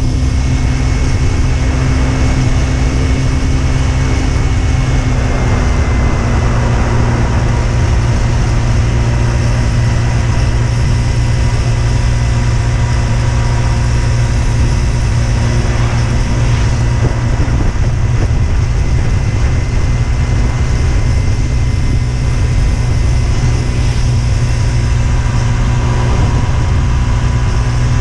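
Husqvarna Svartpilen 125's single-cylinder four-stroke engine running at a steady cruise under way, its note dropping slightly about five seconds in and then holding even, over constant road and wind noise.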